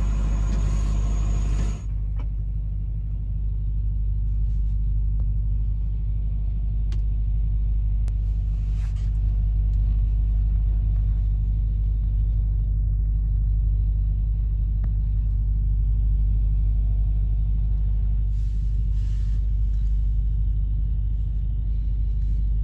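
Semi-truck's diesel engine running, heard from inside the cab as a steady low rumble.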